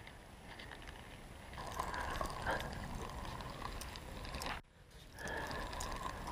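Spinning reel being wound: a faint whirring with fine clicks as a small fish is reeled in. It starts a couple of seconds in and breaks off briefly about halfway through.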